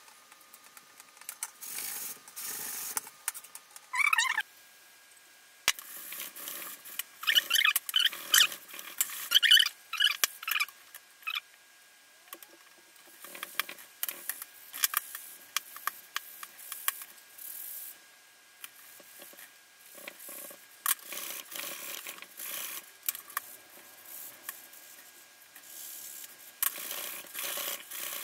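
Wet sponge scrubbing a rusty chrome-plated metal trim piece soaked in cola: irregular rubbing and scratching strokes with runs of short high squeaks, thickest about a third of the way in.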